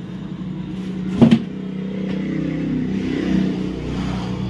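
A motor vehicle engine running steadily, picking up slightly after a sharp double knock about a second in.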